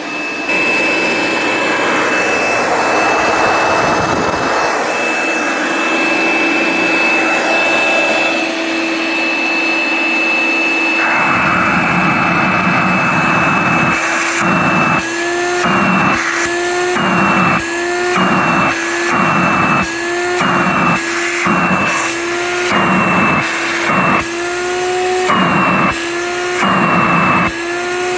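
1964 Hoover Dial-A-Matic 1100 upright vacuum cleaner running with a steady high motor whine. About eleven seconds in, a lower rumble joins it. From about fourteen seconds the sound swells and dips in pitch in a repeating cycle, roughly once a second.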